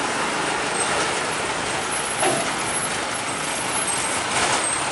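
Trucks and other road traffic passing, a steady mix of engine and tyre noise.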